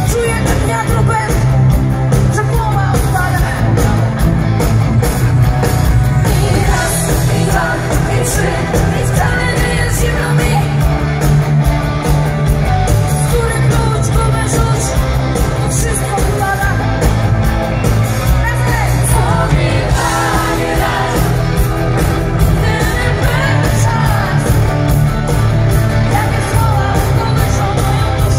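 Live pop-rock band playing at full volume with a heavy bass and drums, a female lead singer singing over it.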